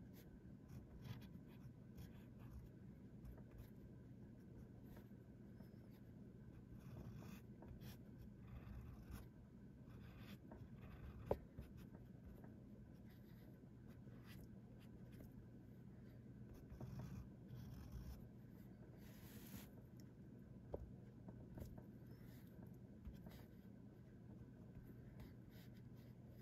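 Integrated nib of a Parker 50 Falcon fountain pen scratching faintly across paper in many short drawing strokes, with one sharp tick about eleven seconds in.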